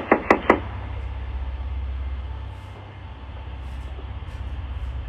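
Rapid knocking on a door, about five knocks a second, stopping about half a second in. A steady low rumble follows.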